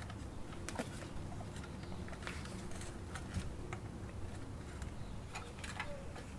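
Scattered light clicks and scrapes of hands threading a thin wire through a piece of driftwood, over a steady low background rumble.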